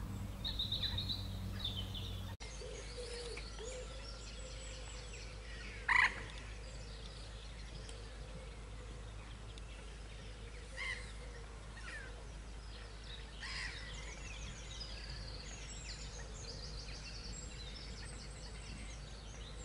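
Mixed birdsong: high repeated trills and chirps, with one louder sharp call about six seconds in and a few shorter calls later, over a steady low hum.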